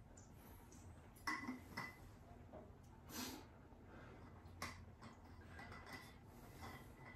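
Near silence with faint sounds of a person handling a water bottle while drinking: a few small clicks, with a breath about three seconds in.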